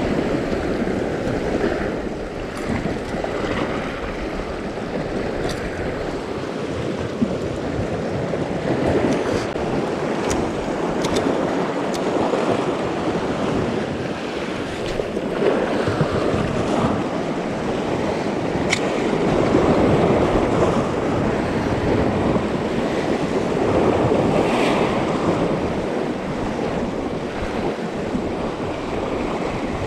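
Sea waves surging and washing on a rocky shore, swelling and easing every few seconds, with wind on the microphone and a few faint clicks.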